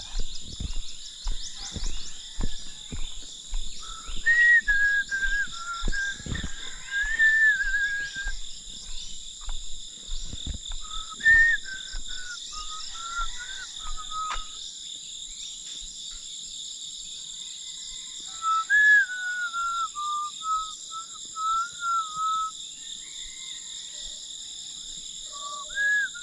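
A person whistling a tune in short wavering phrases over a steady high drone of insects, with scattered thumps in the first half.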